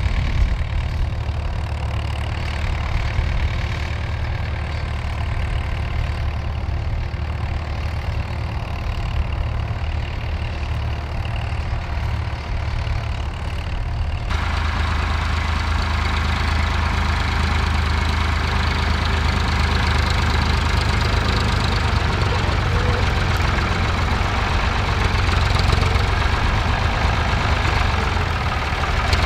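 Tractor diesel engines running steadily as they pull ploughs. About halfway through the sound switches to a second tractor, a Ford 4100, whose engine is louder and brighter.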